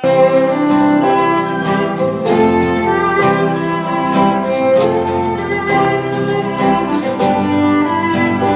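Background music led by violin and strings, cutting in suddenly, with sustained notes and a few light percussive hits.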